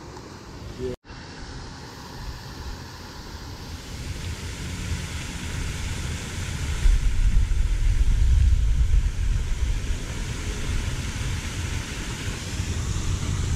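Wind buffeting the microphone outdoors: a rough low rumble that swells about halfway through. The sound drops out briefly about a second in.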